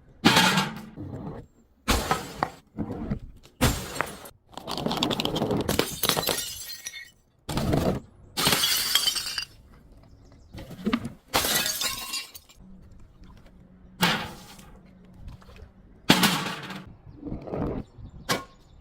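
Glass bottles being smashed and crushed: a series of sharp shattering breaks, often a second or two apart. Some breaks run on into a second or more of crunching shards.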